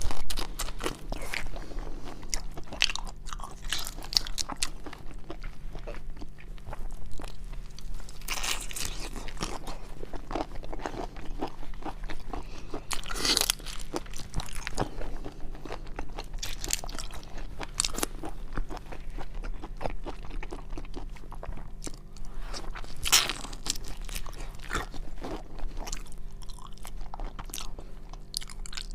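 Close-miked eating of seafood: steady wet chewing and crackling bites, with a few louder crunches through the stretch, over a faint steady hum.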